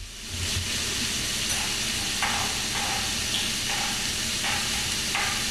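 Shrimp sizzling in olive oil in a hot frying pan as chopped garlic is scraped off a knife into it with a spoon. A steady sizzle, with short scraping strokes repeating through the second half.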